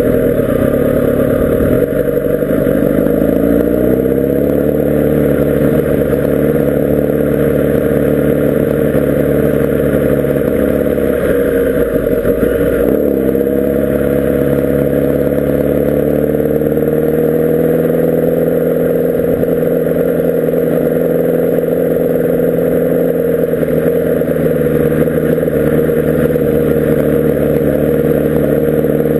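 Kawasaki Ninja ZX-10R SE's inline-four engine running at low road speed, heard on board. Its pitch rises as the bike picks up speed in the first few seconds, dips about eleven seconds in, then climbs again and holds steady.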